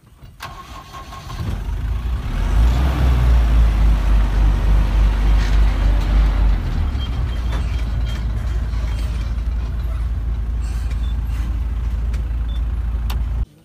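Vehicle engine running close by: a loud, steady low rumble that builds over the first two seconds and cuts off abruptly near the end.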